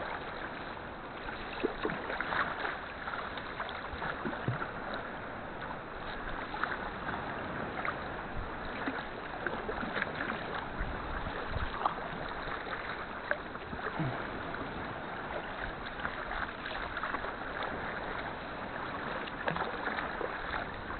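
Sea kayak under way in choppy water: a steady wash of sea around the hull with irregular splashes and slaps from the paddle and waves.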